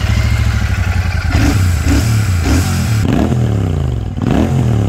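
Royal Enfield Shotgun 650's air- and oil-cooled 650 cc parallel-twin engine running just after starting. From about a second and a half in, its pitch rises and falls as the revs go up and down under way.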